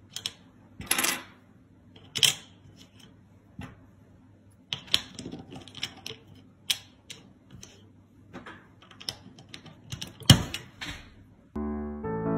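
Hard plastic puzzle pieces clicking and tapping as a hand fits them into a small plastic puzzle tray on a wooden table: a dozen or so irregular sharp clicks, the loudest about ten seconds in. Piano music comes in near the end.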